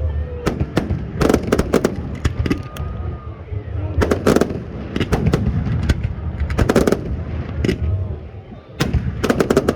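Fireworks display: aerial shells bursting in rapid clusters of sharp bangs and crackles over a constant low rumble, with a few faint whistling glides, and a brief lull shortly before the end.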